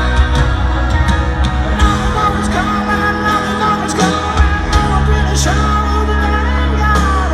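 Live rock band playing a slow power ballad: a man singing lead over piano, bass guitar and drums, heard through the stadium PA from among the crowd.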